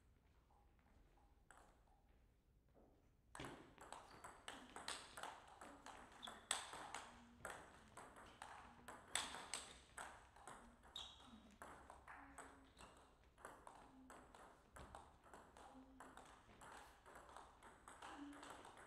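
Table tennis ball clicking on the table and off the rubber bats: a long run of sharp clicks at uneven spacing, starting about three seconds in.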